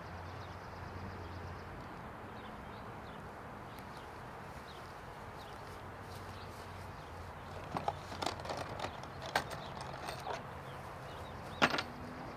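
Wood and tool handling on a plywood deck: a run of short wooden knocks and clatter starting about two-thirds of the way in, with one sharp knock near the end, over steady background noise.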